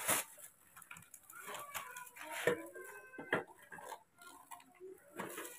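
Plastic shopping bag rustling, with scattered light clicks and taps as things inside it and small plastic cups are handled.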